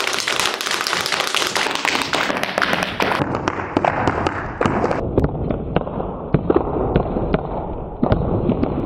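Irish dance hard shoes beating a rapid run of clicks and taps on a hard floor. The sound grows duller in steps, losing its crisp top about two, three and five seconds in.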